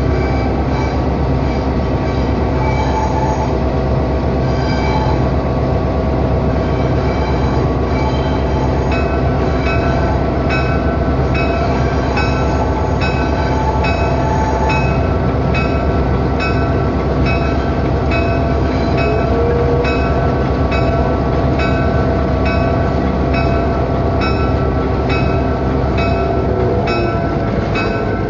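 EMD GP9 diesel-electric locomotive under way at low speed. Its 16-cylinder 567 diesel engine drones steadily under the rumble of the wheels on the rails, heard from the cab doorway.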